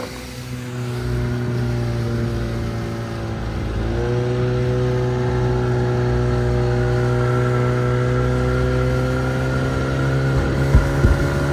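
Small outboard motor on a mini boat running at speed, a steady engine note; about four seconds in the pitch dips briefly, then climbs slowly. A couple of low thumps near the end.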